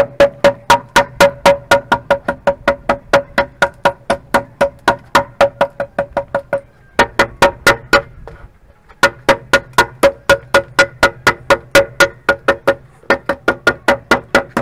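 An axe chopping into a wooden log: rapid sharp chops at about four a second, each with a short ringing tone, pausing briefly twice around the middle.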